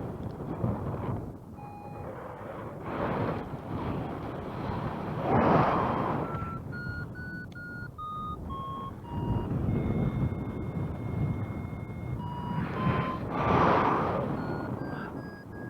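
Paragliding variometer beeping in short tones whose pitch steps down and then back up as the climb rate changes, with one long steady tone lasting a couple of seconds near the middle. Gusts of wind noise on the microphone swell and fade under the beeps.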